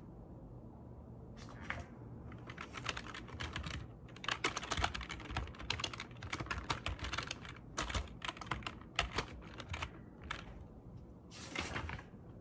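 Typing on a computer keyboard: a quick, uneven run of key clicks that starts about a second and a half in and stops about ten seconds in. A brief rustle follows near the end.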